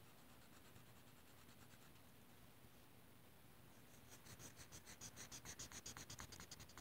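Crayola Color Wonder marker scrubbed quickly back and forth over the coloring sheet: faint at first, then from about four seconds in a rapid scratchy scribbling of about six strokes a second.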